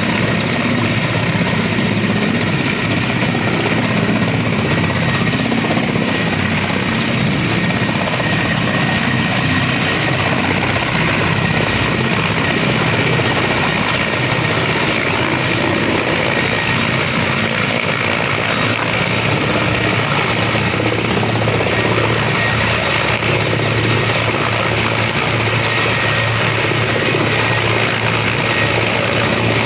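Helicopter in flight, a steady continuous rotor and engine noise with a thin high whine running through it.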